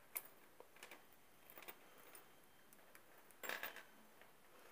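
Faint metallic clicks and clinks of steel pliers working on a thin metal chain as a link is pried open, with a small cluster of clinks about three and a half seconds in.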